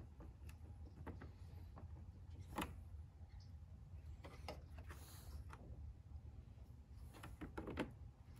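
Small clicks and scrapes of a plastic interior panel tool working plastic push clips out of the top of a Jeep Wrangler JK grille, with a sharper snap about two and a half seconds in and a cluster of clicks near the end. A low steady rumble runs underneath.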